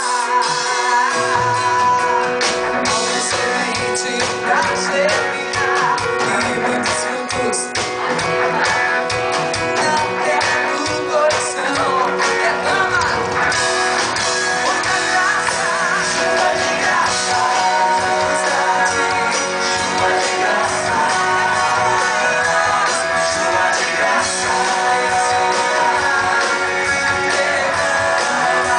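Live band music: a woman singing into a microphone over electric and acoustic guitars and drums, recorded from among the audience.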